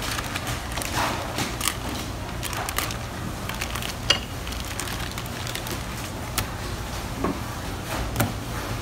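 Plastic bag crinkling and rustling as a whole fish is pulled out of it, with scattered knocks on a plastic cutting board, the sharpest about four seconds in, over a steady low hum.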